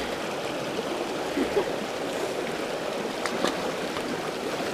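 Small rocky creek running steadily over stones and through a little riffle, with a couple of faint clicks about three seconds in.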